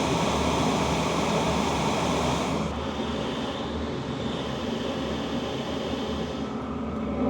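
HCALORY Toolbox 2S portable diesel heater running, its fan blowing steadily with a faint hum and no ticking from its fuel pump. The sound turns duller about two and a half seconds in.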